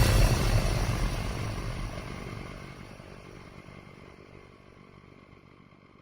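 A noisy, rumbling sound effect fading out steadily, like the tail of a pass-by or a blast dying away.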